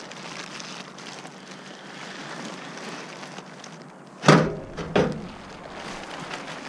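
Two heavy thunks from the sheet-metal body of a first-generation Dodge Ram pickup, less than a second apart, the first louder.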